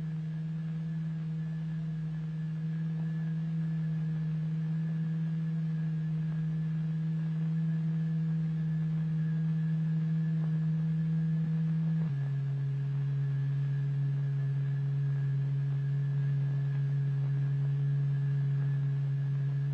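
Steady low pure tone with faint overtones, the test tone exciting a layer of turpentine into a regular latticework of ripples. About twelve seconds in it drops to a slightly lower pitch.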